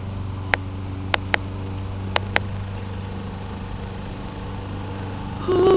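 A steady low hum runs throughout, with several sharp clicks in the first two and a half seconds. Near the end comes a loud held tone at one pitch, lasting well under a second.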